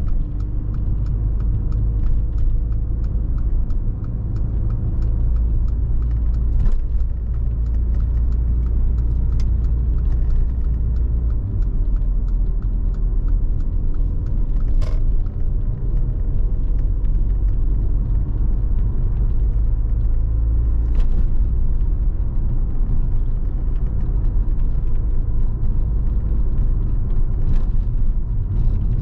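Cabin sound of a 2016 Mercedes-AMG GLA 45 on the move: a steady low road and engine rumble, with the 2.0-litre turbo four-cylinder humming faintly underneath and a few sharp knocks from the road.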